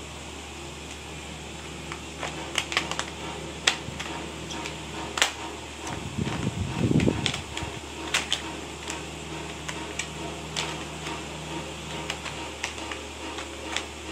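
A steady fan-like hum with scattered sharp clicks and taps over it, and a louder low rumble about seven seconds in.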